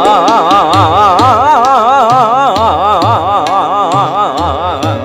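Singer's voice in a fast taan on an open vowel, the pitch shaking up and down several times a second, over a held harmonium chord and tabla strokes.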